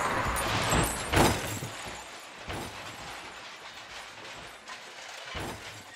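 Tail of a car crash sound effect: scattered clinks and rattles of glass and metal debris settling after the impact, growing fainter over a few seconds.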